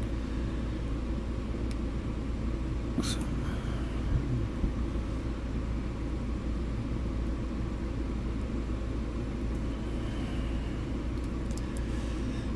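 Steady low rumble throughout, with a few faint clicks from a hook pick and tension tool working the pins of a padlock's 5-pin core.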